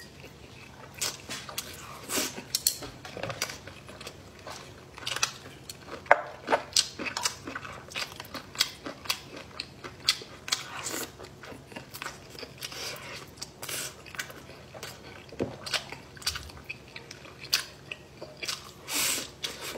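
A person eating, close-miked: irregular chewing and biting with wet mouth smacks, many short sharp clicks following one another unevenly.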